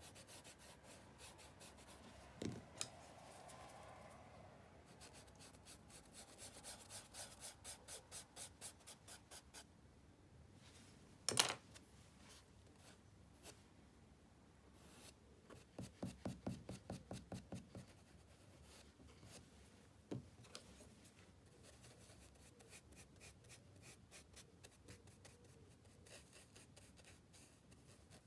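Block of compressed charcoal scratching across thin paper in quick back-and-forth strokes, about four a second, in two runs. A single sharp knock comes about eleven seconds in. Faint.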